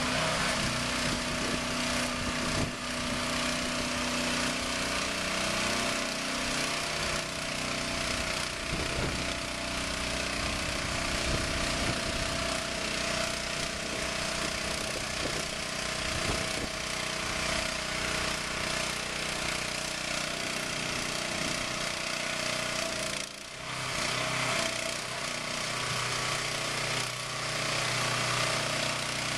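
Hydraulic lift rig on a container-delivery trailer running while it raises a portable storage container, a steady mechanical drone with a held whining tone. It dips briefly about three-quarters of the way through.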